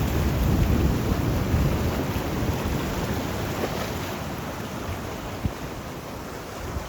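Sea waves breaking and washing in, loudest in the first couple of seconds and then easing off, with a low rumble of wind on the microphone.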